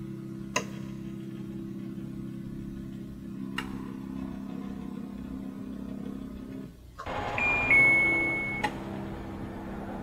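Paseco window air conditioner's louver stepper motor humming as the louvers swing open after power-on, with a click about half a second in and another around three and a half seconds; the owner feels the stepper motor sets up a resonance inside the unit. Near seven seconds the hum stops, the unit gives a two-note power-off beep, and the motor hums again as the louvers close.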